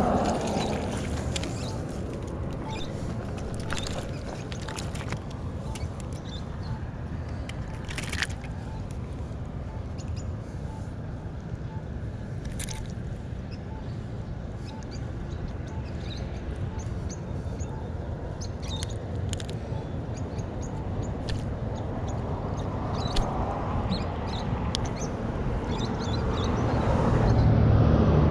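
Steady low rumble with scattered light clicks and taps from hands working a hook free of a largemouth bass. A faint, even ticking runs a little under two a second through the first half, and the rumble swells near the end.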